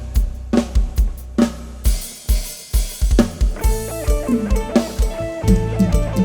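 Instrumental music from a live rot hae band: a drum kit with a heavy, regular bass drum and snare under a bass line. The beat thins out briefly about two seconds in, then a melody comes back in over the drums.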